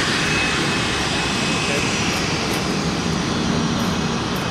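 Steady turbine whine and rumble from a Boeing 737-400 standing on the apron, with a thin high whine that fades over the first couple of seconds.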